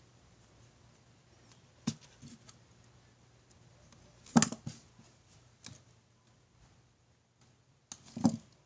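Handling noise from hand-winding a small Mini 4WD motor armature: a few sharp clicks and taps, the loudest cluster about halfway through. Two more taps near the end as the armature and a small metal tool are set down on the table, over a faint steady hum.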